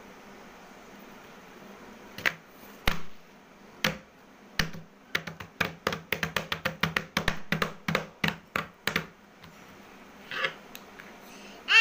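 A child's hand slapping and tapping a stiff paper chart lying on a cushioned seat. It makes a quick series of sharp taps, about three a second for several seconds, after a few scattered ones.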